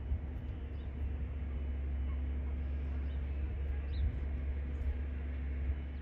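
Steady low outdoor rumble with a few faint, short bird chirps.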